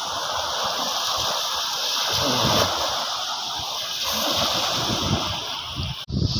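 Seawater washing and splashing in the shallows at a beach, a steady hiss of surf that cuts off abruptly near the end.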